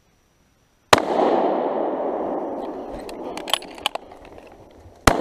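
Two rifle shots from a scoped moose-hunting rifle, about four seconds apart. Each crack is followed by a long echo that fades over several seconds, with a few sharp clicks between the shots.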